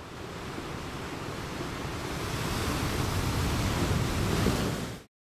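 Steady rushing seaside noise of surf and wind, swelling gradually and cutting off abruptly near the end.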